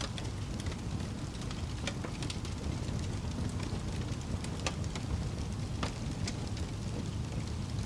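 Fire crackling: a steady low rumble of the flames with irregular sharp pops and snaps, a few each second.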